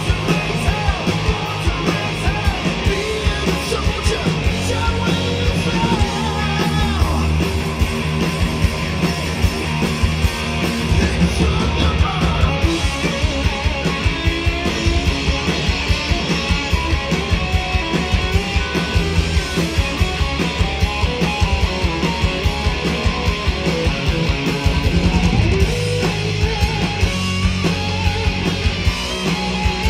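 Live hard rock band playing loud: electric guitars over bass guitar and a steady drum beat, heard through the stage PA.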